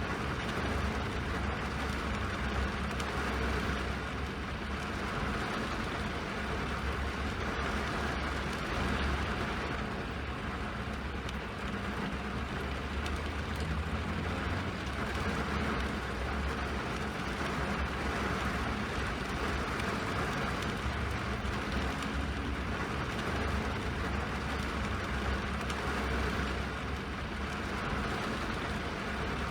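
Steady rain noise: a continuous, even hiss over a deep low rumble, with no distinct drops or breaks.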